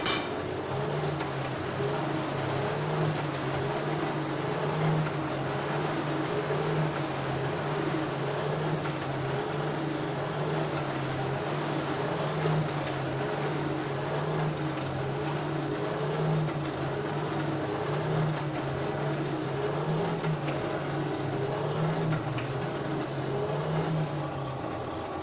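Forge blower running steadily, forcing air into the solid-fuel forge fire as the work is brought up to welding heat: a rushing air-and-fire noise with a low hum that sets in about a second in.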